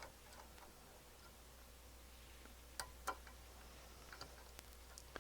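Near silence over a low steady hum, broken by a few faint, sharp clicks of test-probe clips being handled and fitted onto transistor leads, two of them close together about three seconds in.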